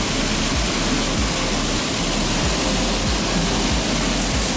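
Small waterfall pouring into a shallow rocky pool: a steady rush of falling and splashing water, with occasional low thumps on the microphone.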